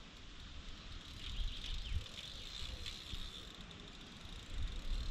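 Faint mechanical ticking from a fishing reel while a hooked fish is played, over low rumble from wind and handling on the microphone.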